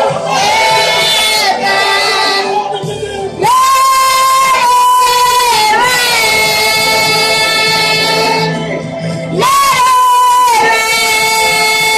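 Gospel worship song: long held sung notes over music, with several voices singing together.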